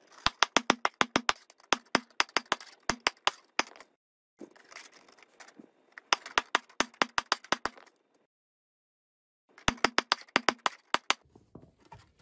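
Claw hammer rapidly tapping the zipper joints of 3D-printed interlocking plastic tiles together, seating one tile into the next. The taps come in three quick runs, with two short silent breaks between them.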